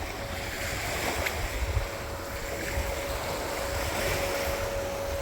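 Wind buffeting the microphone over surf washing onto a beach, with a thin steady hum underneath.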